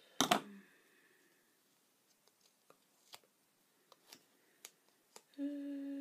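A sharp click from a pair of craft scissors just after the start, then faint small ticks and rustles of fingers handling a small paper piece with foam backing. Near the end, a short hummed "mm".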